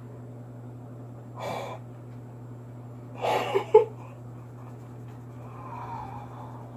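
A woman gasping and breathing hard in shock, muffled by hands over her mouth: one short gasp, then a louder outburst about three seconds in that ends in a sharp peak. A steady low hum runs underneath.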